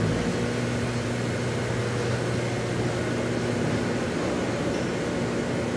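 Cemco 6000 four-head planer sander running steadily with an even, low electric-motor hum.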